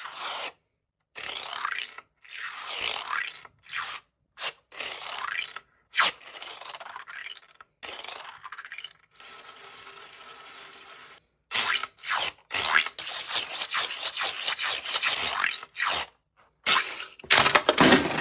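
3D-printed plastic star fidget being worked by hand: its plastic segments scrape and slide against each other in a string of separate strokes, some sweeping up or down in pitch, with short silent breaks between them. Past the middle it turns into a quick run of rattling clicks.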